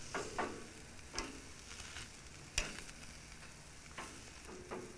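Beef short ribs searing on the hot side of a grill: a steady sizzle with a few sharp pops or clicks, the loudest about halfway through.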